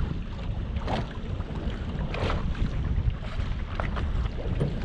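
Wind rumbling on the microphone over water lapping against a small boat, with a few short splashes as a hooked fish thrashes at the surface.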